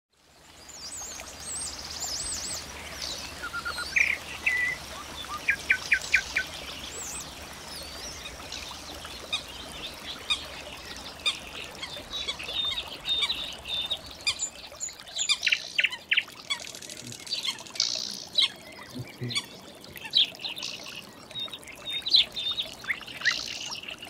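Several wild songbirds singing and calling in a dense mix of chirps, trills and whistles over a soft steady hiss, fading in at the start.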